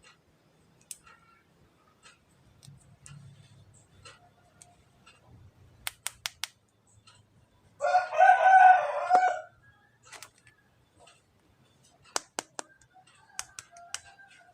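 A rooster crows once, about two-thirds of the way through, for under two seconds. Scattered sharp clicks can be heard before and after it.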